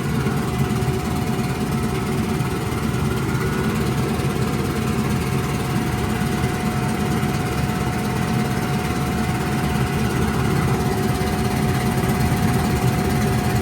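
1954 Johnson CD-11 5.5 hp two-cylinder two-stroke outboard motor running steadily in a test tank, with a thin steady high tone joining in about half a second in.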